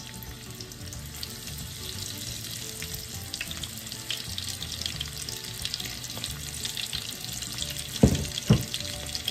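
Breaded shrimp frying in shallow oil in a pan, a steady crackling sizzle with many small pops as more shrimp go into the oil. Near the end come two dull thumps half a second apart.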